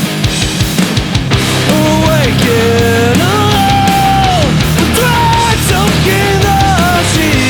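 Melodic punk rock band playing loudly: driving drums under guitars, with a gliding melodic line coming in about two seconds in.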